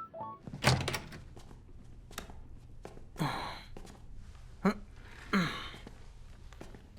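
A person's breathy sighs and exhalations, three in all, each falling in pitch, after a sharp click near the start.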